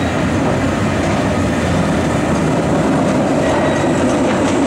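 San Francisco cable car rolling along its slotted street track: a steady rumble of wheels on rail, growing a little louder as the car draws close.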